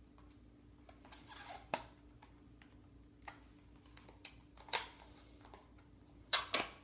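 Scattered light clicks and crinkles of plastic deli cups being handled, with a louder pair of snaps near the end as a cup's plastic lid is pried off. A faint steady hum runs underneath.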